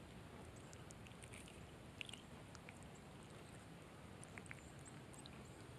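Near silence: faint outdoor hiss with a few scattered soft ticks.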